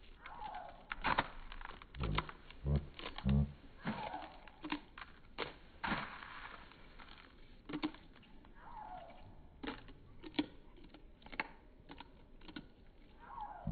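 Hens pecking and crunching Frosted Mini-Wheats out of a paper cup: irregular sharp pecks and crunches, with three dull thumps about two to three and a half seconds in and a few short falling calls.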